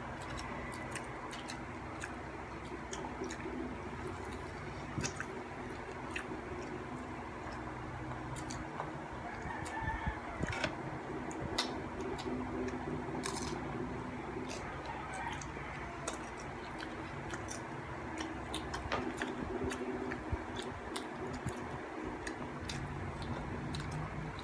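Close mouth and chewing sounds of someone eating a bread roll, with many small clicks over a steady low hum. A few short clucks, like chickens, are heard in the background.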